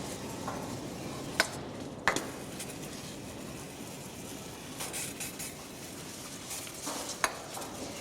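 A few sharp metallic clinks of steel tools and parts being handled, about a second and a half in, two seconds in and near the end, with lighter clatter between them over a steady background hiss.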